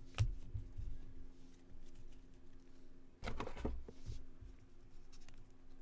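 Trading cards being handled and sorted: soft clicks, rustles and light knocks of card stock on a table, with a sharper click near the start and a brief louder stretch about three seconds in, over a steady low electrical hum.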